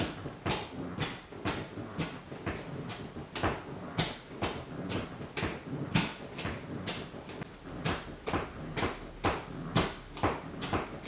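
Sneaker toe tapping on a wooden floor: the rubber sole knocking in a quick, uneven run of taps, about two or three a second.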